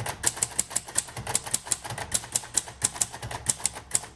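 1956 Royal Quiet Deluxe manual typewriter being typed on at a steady pace, its type bars striking the platen about five times a second.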